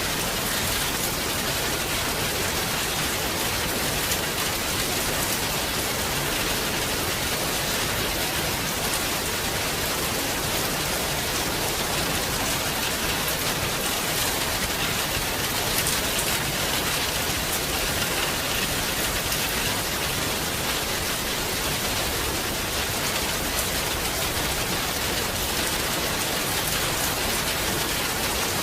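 Heavy rain falling steadily, an even hiss with many fine drop patters and no change in intensity.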